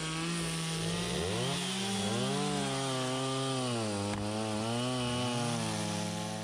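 Gas chainsaw cutting through firewood logs, its engine pitch sagging and rising over and over as the chain bites and frees. The sound fades near the end.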